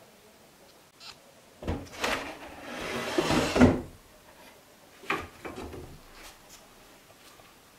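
Drawer of an old wooden teacher's desk being pulled, wood scraping on wood for about two seconds after a knock, then a few short knocks.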